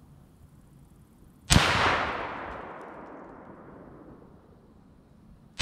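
A shot from an AR-15-style rifle about a second and a half in, with a long echoing tail that fades over about two seconds; a second shot cracks right at the end.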